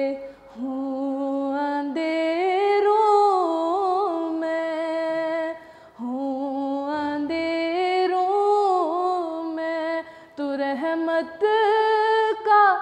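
A girl's solo voice singing an Urdu devotional prayer song with no accompaniment, in long held notes with wavering ornaments. The phrases break briefly about 2, 6 and 10 seconds in.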